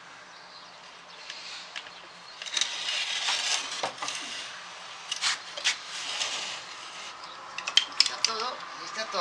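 Small wooden loom frame being lifted upright and handled: scattered wooden knocks and clicks with rustling and scraping, and a quick cluster of sharp clicks near the end.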